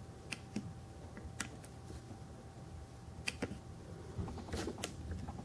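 Faint, scattered light clicks and taps from a die-cast metal and plastic scale-model excavator being handled, about seven in all, over a faint steady hum.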